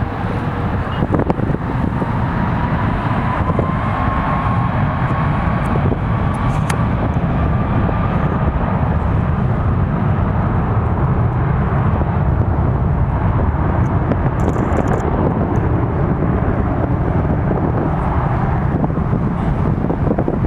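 Jet airliner engines running with a loud, steady rumble, and a thin whine that rises slowly in pitch over the first several seconds.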